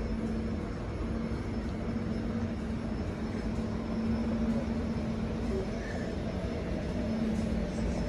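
Alstom C-series electric railcar standing at a platform, its onboard equipment giving a steady low hum over a constant rushing noise.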